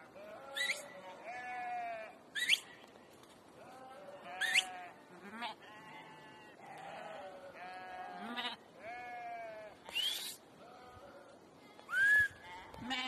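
A large flock of sheep and goats bleating, many overlapping calls one after another, with short, sharp, high rising cries standing out as the loudest moments.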